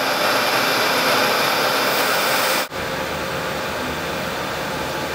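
Steady whirring noise of machine-shop machinery such as a milling machine running. It drops out sharply about two and a half seconds in and comes straight back a little quieter with a faint hum.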